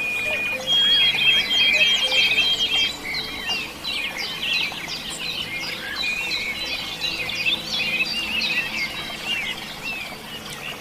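Many small birds chirping and calling at once: a dense chorus of short, overlapping chirps and trills, broken by a few held, steady whistled notes.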